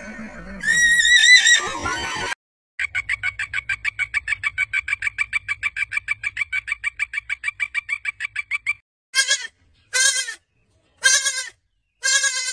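A loud warbling cry, then a frog calling with a fast pulsed trill, about seven pulses a second for some six seconds, then four short bleats from an ibex, each about half a second long.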